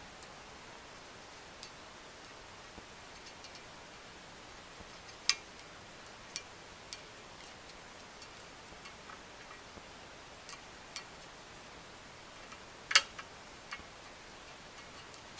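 Scattered light metallic clicks and ticks as a small screwdriver tip works steel needle rollers into the needle bearing race of a Polaris Outlaw rear A-arm, loading the bearing one needle at a time. Two sharper clicks stand out, about five seconds in and again later on.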